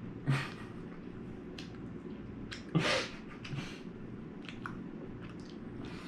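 Quiet chewing of jelly beans with small wet clicks, and two short, louder noises: one just after the start and one near the middle.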